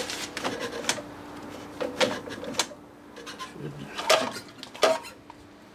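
Recoil starter of an outboard motor that has been sitting being hand-pulled, with short clattering knocks from the rope and starter, while the engine does not yet catch.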